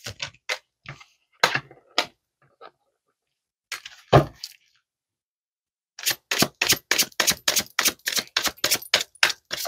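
A deck of tarot cards being handled by hand: a few scattered card clicks and taps, then from about six seconds in a quick, even run of card slaps, about six a second, as the deck is shuffled. A short low sound comes about four seconds in.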